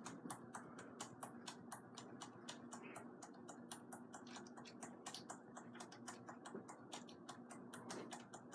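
A computer keyboard's calculator key pressed rapidly over and over, light clicks at about eight a second, over a faint steady hum.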